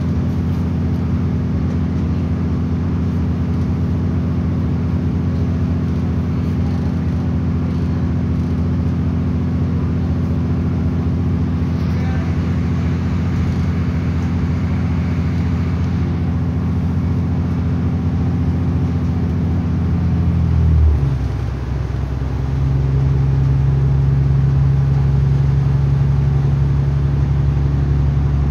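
Irish Rail 29000 class diesel multiple unit heard from inside the passenger car: a steady low engine drone under the running noise. About two-thirds of the way through, the drone drops in pitch, then settles into a new steady note.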